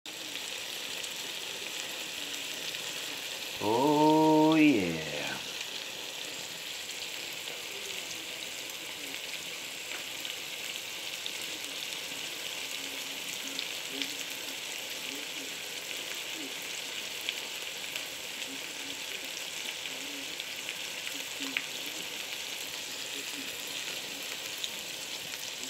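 Crab claws frying in a pan of hot fat: a steady sizzle with scattered small pops. About four seconds in, a short pitched hum lasting about a second and a half rises over the sizzle and is the loudest sound.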